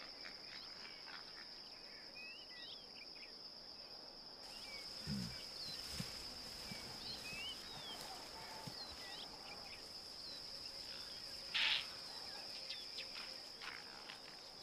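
Savanna ambience: a steady, high-pitched insect drone with a few short chirps scattered over it.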